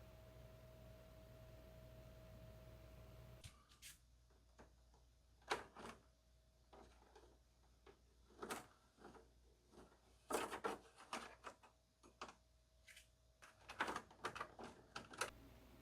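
Scattered plastic clicks and knocks from a Winia wall-mounted air conditioner's casing being handled, as its front panel and filters are opened and taken out. Before them, a faint steady hum stops about three and a half seconds in.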